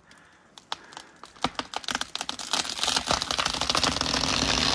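A large old-growth conifer going over after felling: a few separate cracks of breaking wood, then a dense, quickening crackle of snapping fibres and branches that grows steadily louder toward the end as the tree starts to come down.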